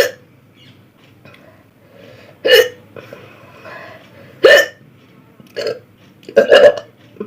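A person hiccuping repeatedly: about six short, sharp hiccups at uneven intervals of one to two seconds, the last two close together near the end.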